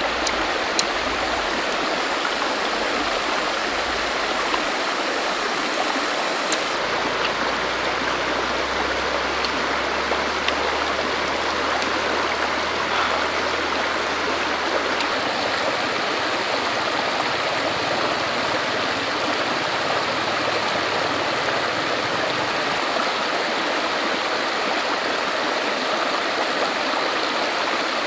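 Shallow stream running over rocks: a steady rush of water, with a few faint clicks.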